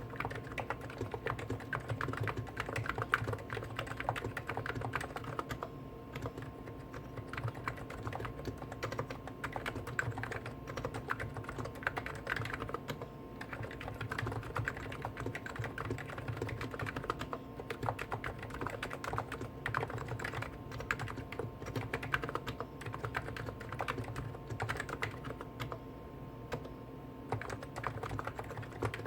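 Continuous rapid typing on two Hansung electro-capacitive (Topre-style) keyboards at once: a GTune CHF4 Snow White with 50 g switches and a CHF7 OfficeMaster with 55 g switches. The keystrokes run together into a dense, even patter, with a steady hum underneath.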